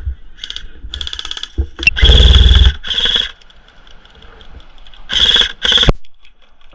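Airsoft guns firing in short bursts, several volleys of rapid shots, the loudest about two seconds in and two more near the end.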